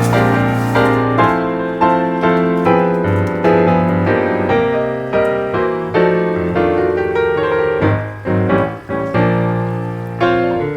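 Background piano music: notes struck and fading, with a bass line underneath.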